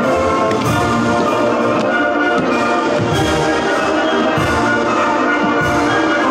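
Orchestral music led by brass, loud and full.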